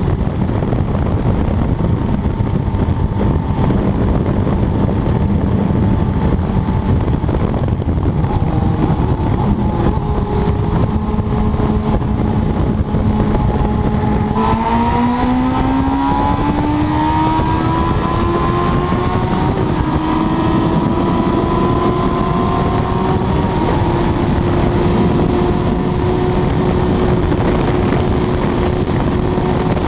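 Kawasaki ZX-12R inline-four motorcycle engine at very high speed, under heavy wind rush on the microphone. The engine note holds steady, then about halfway through climbs in pitch over several seconds as the bike accelerates, and settles at a higher steady pitch.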